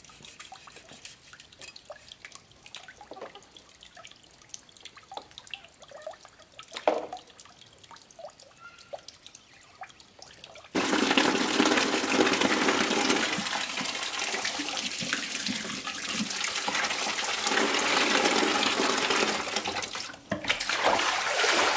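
Quiet splashing of hands and a knife working a plucked chicken in a plastic basin of water, with one louder splash about seven seconds in. About halfway through, a tap is opened and water runs hard and steadily into the basin.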